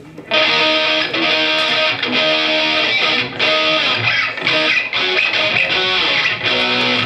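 Electric guitar strumming chords through an amplifier, starting suddenly about a quarter second in and played in short phrases separated by brief breaks.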